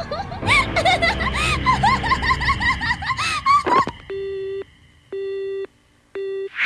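A woman laughing in a quick string of high, rising-and-falling ha's, then the line going dead: three beeps of a telephone busy tone, about one a second.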